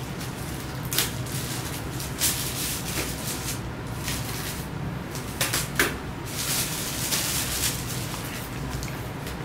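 Plastic bag and protective plastic wrapping rustling and crinkling as they are pulled off a full-face motorcycle helmet and its visor, in irregular bursts with a few sharp clicks of handling.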